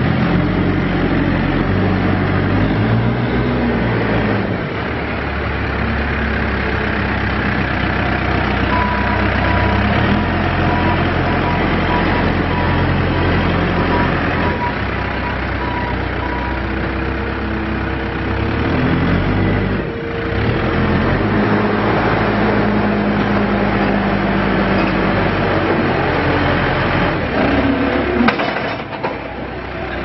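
Four-cylinder diesel engine of a 2007 Case 580SM Series II backhoe loader running under throttle as the machine drives and raises its loader bucket, the engine note rising and falling.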